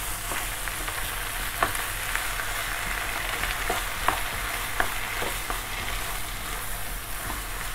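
Minced beef and chopped vegetables sizzling in a frying pan over high heat, stirred now and then. There is a steady hiss, with occasional sharp clicks of the stirring utensil against the pan.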